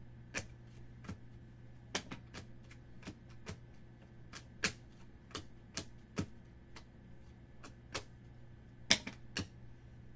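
Glossy Panini Select baseball cards being flicked one at a time off a stack in the hand, each card giving a sharp click, irregularly about one or two a second, over a low steady hum.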